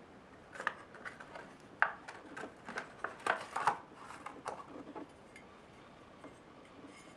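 Clear plastic blister packaging crackling and snapping as it is pulled open and a metal finger guard is taken out of it, a run of sharp irregular crackles with a few louder snaps. Near the end only faint ticks of handling remain.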